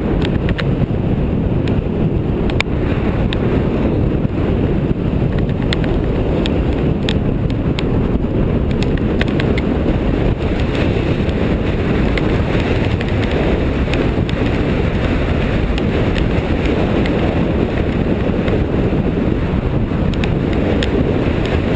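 Strong wind buffeting the microphone: a loud, steady roar heaviest in the low end, with scattered small clicks and ticks throughout.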